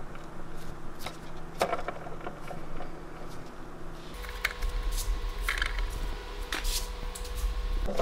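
Scattered light clicks and taps of a cast bronze skateboard truck and wheels being handled on a workbench, over a steady hum. A low rumble comes in about four seconds in.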